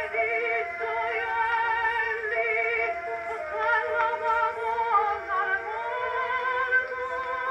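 An Edison cabinet phonograph playing a 1913 acoustic recording of an operatic soprano aria with orchestra, through a reproducer whose original diaphragm has been refitted with new gaskets. The soprano holds long notes with a wide vibrato over sustained orchestral lines.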